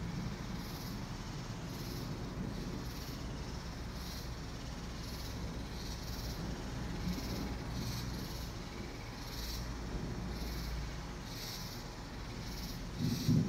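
Insects chirping in short, repeated pulses, roughly one to two a second, over a steady low rumble. A short, louder low thump comes near the end.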